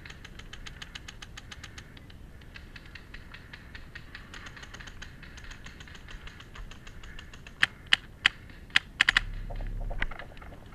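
Paintball markers firing: a fast, even string of fainter shots at about ten a second, then about six loud, sharp shots close by within a second and a half, followed by a brief low rumble.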